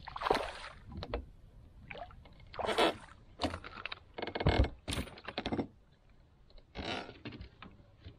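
Hooked bass splashing and thrashing at the surface beside a boat and being brought aboard: a series of short splashes and knocks, the loudest about three and four and a half seconds in.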